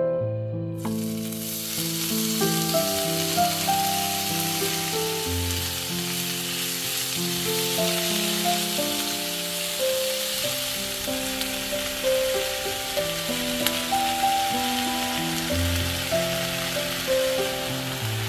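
Sliced onions hitting hot oil in a frying pan and sizzling as they fry, the sizzle starting suddenly about a second in and staying steady, over background piano music.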